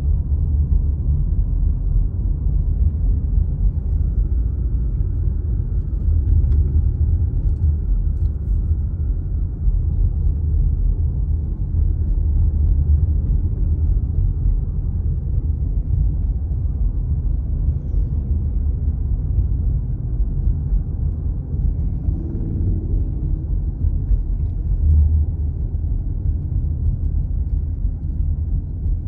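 A steady low rumble of road and engine noise inside the cabin of a moving car.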